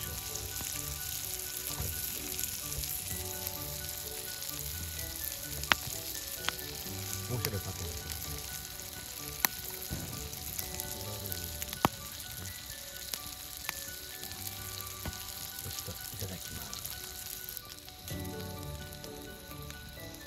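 Salted pork offal (shio horumon) frying in a steel pan, a steady sizzle with a few sharp pops.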